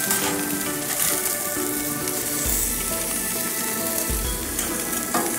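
Swordfish steaks sizzling on a gas grill, a steady hiss, with background music carrying a melody over it.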